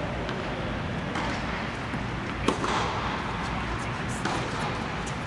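A single sharp, echoing knock of a tennis ball, struck or bounced, about two and a half seconds in, with a few fainter ball or shoe clicks later. Under it runs the steady low hum of the air dome's inflation blowers.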